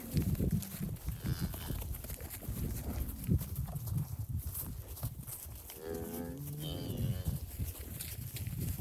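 Murray Grey cattle mooing: one clear, drawn-out moo about six seconds in and a fainter, higher call about a second in, over a low rumble.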